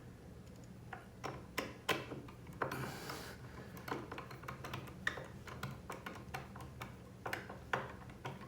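Irregular light clicks and taps of hand tools on screws and nuts while a skateboard truck is being bolted on and tightened, with a brief scraping rustle about three seconds in.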